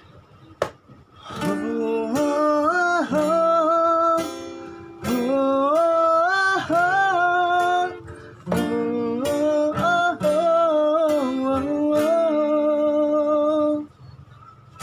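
A song with acoustic guitar, strummed chords under a wavering, gliding melody line in three long phrases, starting about a second and a half in after a single click.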